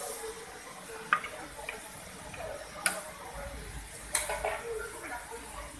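About five sharp metallic clicks and ticks, irregularly spaced, with two louder ones midway and later: a hex key and wrench knocking against a rocker arm's adjusting screw and locknut while the valve clearance is set. A faint steady hiss runs underneath.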